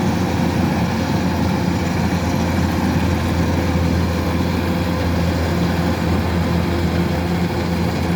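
Kubota DC-105X rice combine harvester running, its diesel engine holding a steady, even note.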